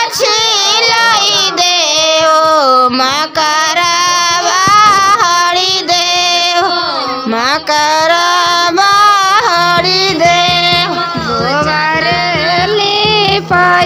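Bhojpuri Chhath devotional song: a high voice sings a long, ornamented melodic line without clear words over a steady rhythmic beat.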